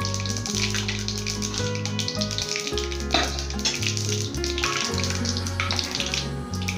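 Hot oil frying in a steel kadai, a steady sizzle with scattered small crackles. Background music with a bass line plays under it.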